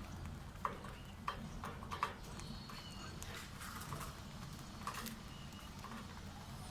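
Small pet parrots clicking and tapping irregularly, as at feeding, with a few faint high chirps, over a steady low hum.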